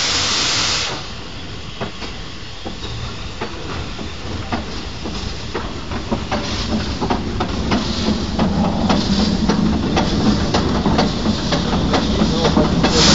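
Saxon IV K narrow-gauge steam locomotive 99 516 under way: a loud hiss of steam in the first second, then a run of sharp regular beats that come closer together over a growing low rumble, and loud steam hiss again at the very end.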